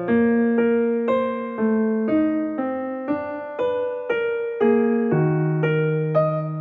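Background music: piano playing an even run of single notes, about two a second, each note ringing out and fading.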